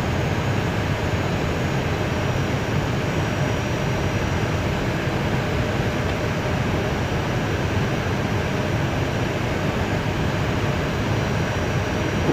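Steady rumble and hiss inside the cockpit of an Airbus A320 taxiing, from its engines and airflow, with a faint high whine.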